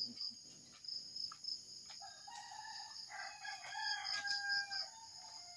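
A rooster crowing faintly, one drawn-out crow from about two seconds in that lasts about three seconds, over a steady high-pitched hiss.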